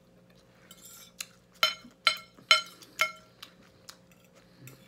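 Metal fork scraping and clinking against a ceramic dinner plate: a few soft scrapes, then four ringing clinks about half a second apart starting about a second and a half in, then a few faint ticks.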